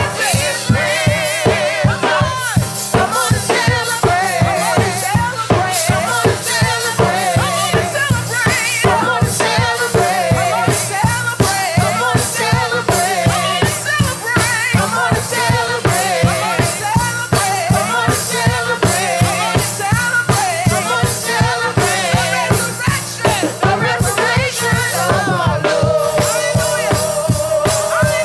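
Live gospel praise-and-worship music: a worship team singing over a band with a steady drum beat, a long note held near the end.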